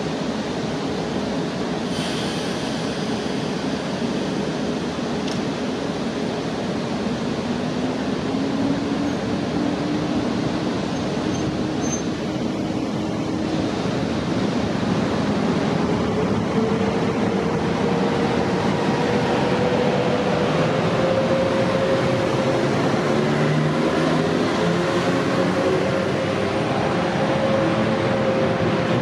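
Electric trains at a station: a pair of EN78 electric multiple units pulling in, then an EP09 electric locomotive starting an Intercity train away from the platform. A steady rumble runs throughout, with a motor whine that rises slowly in pitch, growing louder in the second half.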